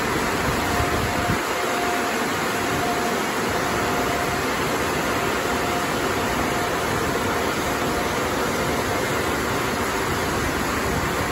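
Liquid Force touchless car wash machine running: a steady rushing noise with a faint whine that comes and goes.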